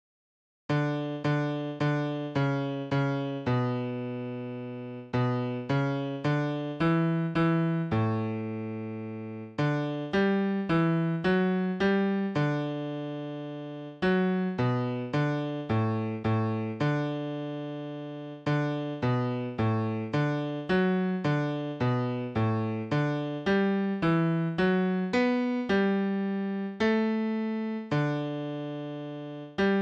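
Music-notation software's piano sound playing a four-part hymn chord by chord at a steady 108 beats a minute. Each chord decays after it is struck, and longer chords are held at the ends of phrases.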